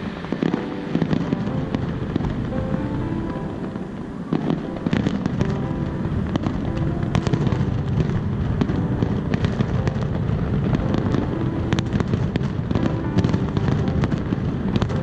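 Fireworks going off in a dense run of bangs and crackles, the low booming thickening from about five seconds in, with music playing under it.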